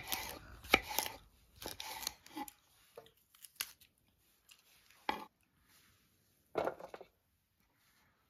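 Kitchen knife slicing a green bell pepper into strips on a wooden cutting board: quick knocks of the blade on the board in the first two seconds, then a few scattered knocks, with louder ones about five seconds in and near seven seconds.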